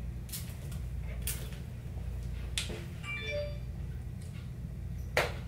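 Hands fluffing and shaking out a long curly wig. The hair and sleeves rustle in short strokes about a second apart, and there is a louder bump near the end, over a steady low room hum.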